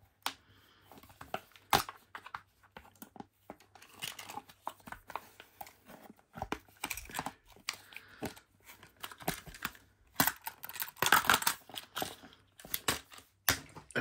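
A padlock's retail packaging being cut with shears and pulled apart: irregular snips, snaps and crinkling, with one sharp snap about two seconds in and a louder stretch of crackling and tearing a few seconds before the end.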